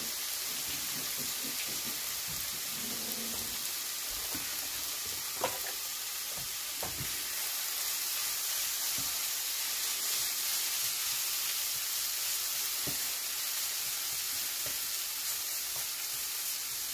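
Sliced sausage, zucchini noodles, spaghetti squash and pasta sizzling steadily in a hot frying pan as they are stirred and tossed with a silicone spatula. There are a few light clicks as the spatula knocks against the pan.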